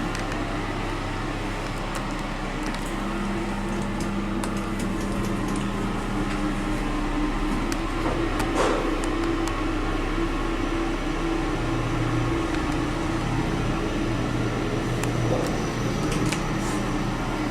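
Kone MonoSpace machine-room-less lift car travelling: a steady hum with a few low tones that shift in pitch a couple of times, and one light click about halfway through.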